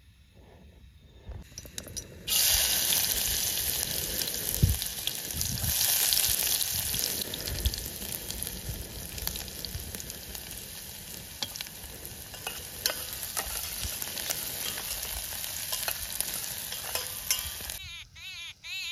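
Chopped onions sizzling as they fry in a steel pot on a small camping gas stove, with clicks and taps of stirring. The sizzle starts suddenly a couple of seconds in and stops near the end, where a small bird's repeated chirps begin.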